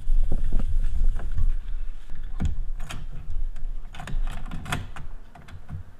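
Gloved hands wiping thermal compound off a CPU with a cloth, a low rubbing handling noise, followed by a few sharp clicks and knocks as the hands work at the CPU socket.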